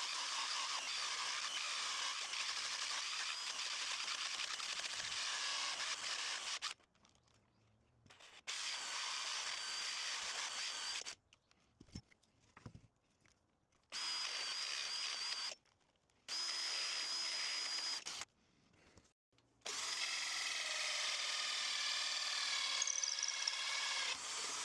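Power drill running a hole saw into a hollow-core door, in four runs separated by short breaks. The cutter keeps slipping because it would not hold in its shaft.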